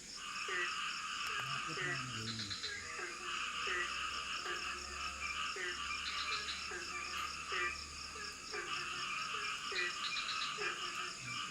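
A chorus of frogs calling over and over, many overlapping short calls with a recurring trill every few seconds, over a steady high-pitched drone.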